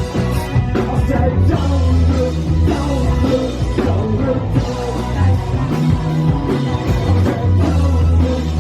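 A rock band playing live, loud, with drums, bass guitar and guitars.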